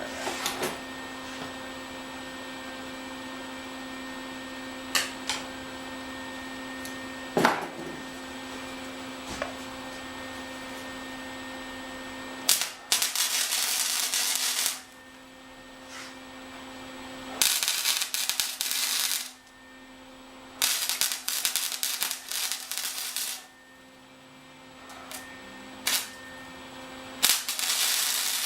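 Arc welding with 6013 stick electrodes, the arc crackling and sizzling in four short bursts of one to three seconds as tack welds are laid, over a steady electrical hum from the welder. A few sharp clicks come in the first seconds.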